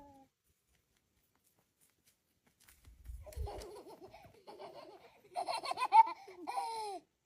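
Laughter in a run of short bursts, starting about three seconds in and loudest near the end, closing on a drawn-out falling note. A brief low rumble comes just as it starts.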